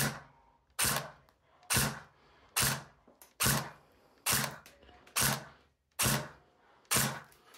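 CYMA Platinum SLR AK-105 electric airsoft gun firing single shots into a chronograph, nine sharp shots at a steady pace of about one a second. Each shot is the gearbox cycling and the 0.2 g BB leaving at about 342 fps.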